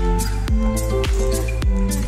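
Background music with a steady beat: a low kick drum about twice a second under held chords.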